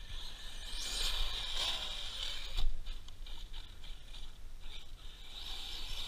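High whine of small electric motors that comes and goes in bursts, with a brief gliding pitch about two seconds in and a sharp click just after.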